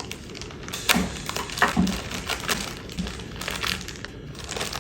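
Packaging being cut open with a knife and pulled apart: irregular crackling, crinkling and scraping with small clicks.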